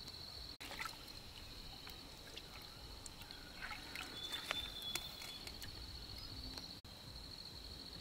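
Insects chirring in a steady high-pitched drone, with scattered clicks and taps around the middle. The sound drops out for an instant twice.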